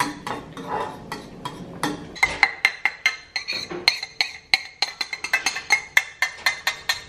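Background music with a quick, clicking percussive beat; pitched notes join the beat about two seconds in.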